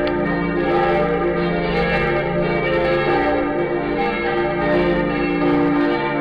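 The bells of the Lindenkirche, Berlin, ringing together in a full peal. Strikes from several bells arrive about once or twice a second and overlap over a continuous ringing hum.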